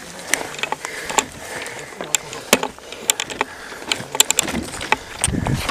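Irregular clicks and rattles of gear knocking against an airsoft replica rifle and its mounted camera as the player carries it and moves.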